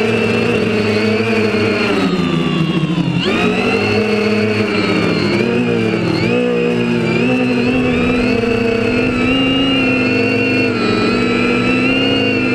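Quadcopter's four Tiger MT2216-9 1100kv brushless motors spinning APC 9x4.7 propellers, a whirring whine whose pitch rises and falls with the throttle. About three seconds in, the pitch sinks and then jumps sharply back up as the throttle is cut and punched, with a smaller dip and climb a few seconds later.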